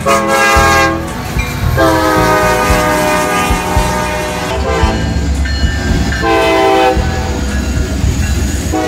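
Diesel freight locomotive's multi-chime air horn sounding at a grade crossing: a short blast, a long blast of about three seconds, a quick short one, then another blast. Under the horn runs the low rumble of the locomotives' engines and rolling wheels.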